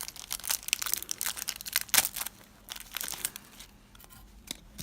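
Foil Yu-Gi-Oh card pack wrapper being torn open and crinkled: a dense run of crackles for about two seconds, then sparser, quieter rustles.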